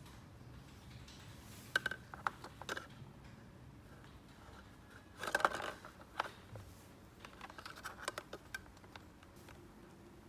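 Small plastic toy parts being handled: scattered sharp clicks and taps in two clusters, with a brief louder scraping rustle about five seconds in.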